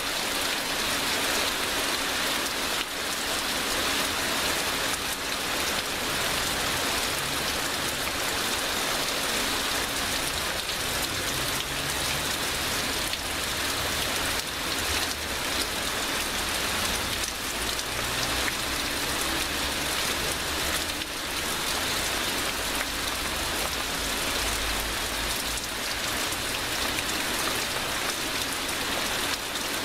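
Heavy rain pouring down steadily, a dense even hiss with scattered drops spattering on surfaces.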